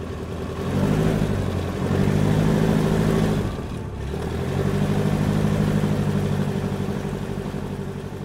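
Aircoupe light aircraft's piston engine running, swelling in loudness, easing off briefly about three and a half seconds in, then swelling again and fading away near the end.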